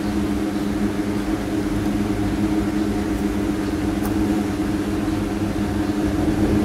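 A steady machine hum with two low droning tones that does not change.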